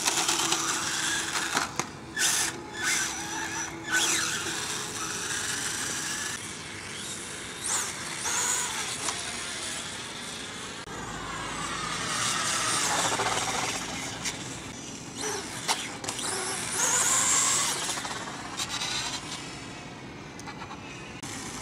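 Brushless electric motor of a SkyRC Super Rider SR4 RC motorcycle whining as it drives, the pitch gliding up and down several times as it speeds up and slows. A few sharp knocks come in the first few seconds.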